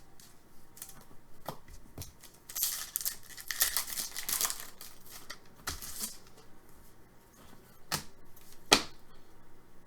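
Foil hockey card pack wrappers tearing and crinkling as packs are opened and cards handled, with a few sharp taps; the loudest tap comes near the end.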